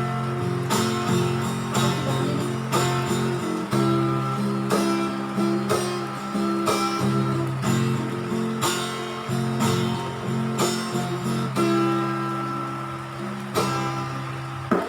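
Acoustic guitar strumming chords in a steady rhythm, the chords ringing between strokes, with no singing: an instrumental interlude of a song.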